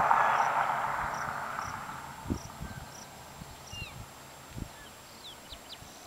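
Open-country ambience: a rushing noise fades away over the first two or three seconds. Then it is quiet, with a high chirp repeating about twice a second and a few quick falling bird chirps.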